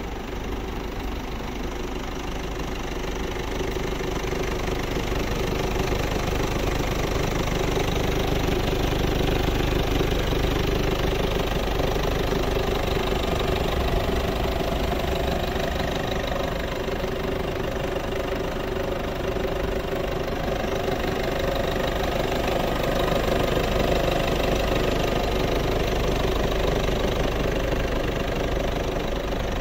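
Peugeot 308 II 1.6 BlueHDi 100 four-cylinder turbodiesel idling steadily, heard up close over the open engine bay, with no revving.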